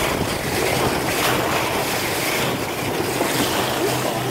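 Water rushing and splashing along the bow of a moving boat, a steady sound with wind buffeting the microphone.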